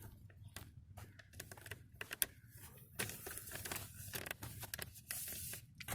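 Scattered light clicks, taps and rustles of handling and movement, with a brief hiss near the end.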